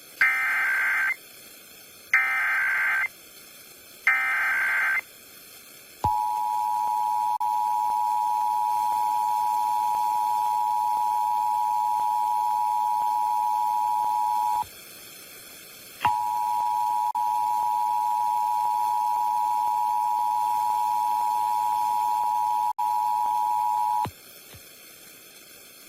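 Emergency Alert System tones: three short bursts of the SAME header's digital data tones, then the EAS two-tone attention signal (853 and 960 Hz) held steady for about eight seconds. The attention signal breaks off for about a second and a half and resumes for another eight seconds, announcing a required monthly test.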